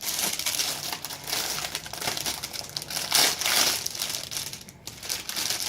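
Plastic crinkling and rustling as the visor and its parts are handled, an uneven run of crackles that is loudest a little past halfway.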